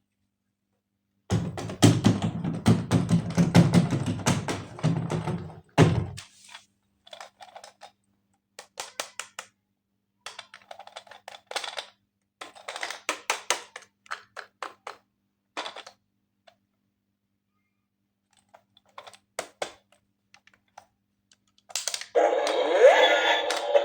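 Hard plastic toy parts being handled and clicked together: a dense run of taps and thunks for the first few seconds, then scattered clusters of light clicks. Near the end, a louder short burst of noisy sound with rising tones.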